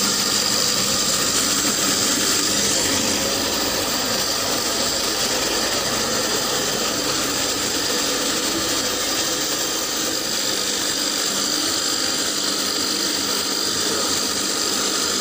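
Floating fish feed extruder machine running steadily, a constant high whine over continuous mechanical noise.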